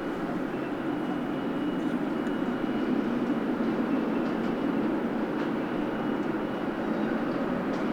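Boeing 777F's GE90 turbofan jet engines running, heard as a steady rumble with a thin, steady high whine over it.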